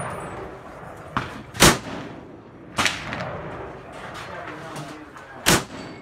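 M1 Garand rifle fired from a shooting bench: two loud shots, one about one and a half seconds in and one near the end, with two fainter shots in between.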